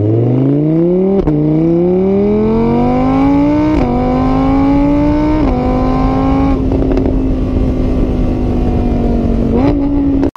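Car engine accelerating hard through the gears: the revs climb, drop back at each of three gear changes and climb again, then hold at a steady high pitch.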